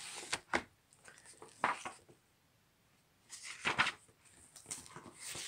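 Paper pages of a thick book being leafed through by hand: several short swishes and rustles as the pages are flipped and smoothed down.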